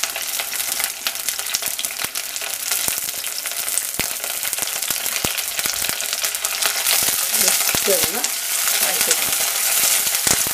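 Ginger, garlic, curry leaves and green chillies sizzling and crackling in hot coconut oil in a clay pot: a steady hiss dotted with sharp pops, a little louder in the second half. Near the end a metal ladle stirs the pan.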